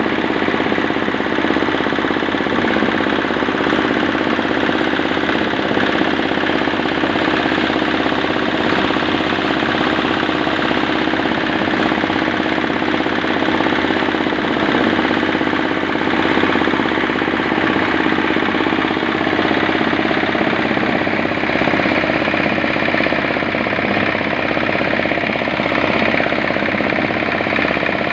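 8 hp diesel engine driving a cement mixer, running steadily with a fast, even knocking beat.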